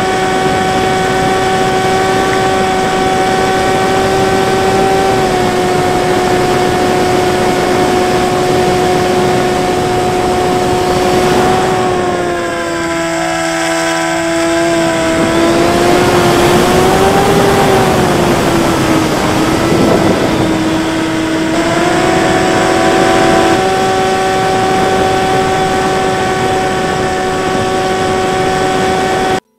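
Brushless electric motor and pusher propeller of a HobbyKing Bix3 RC foam plane running in flight, heard from a camera mounted on the plane: a steady high hum. About midway its pitch dips and wanders for several seconds while wind rushes louder over the airframe, then it settles back to a steady hum.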